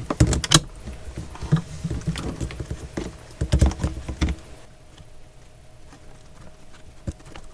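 Hands handling a braided plastic water hose and its fittings among the plumbing, with a run of small clicks and knocks, quieter in the second half.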